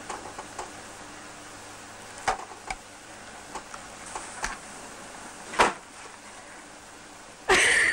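A steady low hum with a few scattered small knocks and clicks, then a loud sniff near the end.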